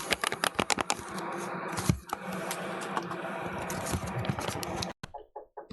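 Rapid, irregular clicking and tapping over a steady background hiss, with one louder knock about two seconds in. The sound stops abruptly about five seconds in.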